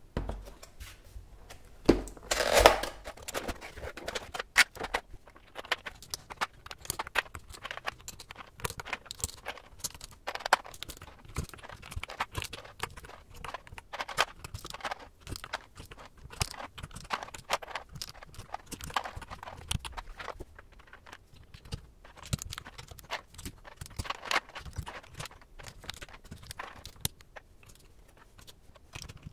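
A cardboard keycap box being handled and opened, with a scraping rush about two seconds in. Then many small, irregular plastic clicks and taps as PBT keycaps are lifted from their plastic trays and pressed onto the mechanical keyboard's switches.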